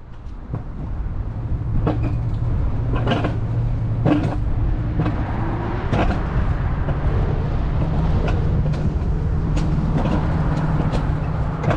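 Alpine coaster sled rolling along its steel rails: a steady rumbling hum that builds over the first couple of seconds as the sled gets going again after its automatic anti-collision stop, then rises in pitch about halfway through, with scattered knocks and clatters from the track.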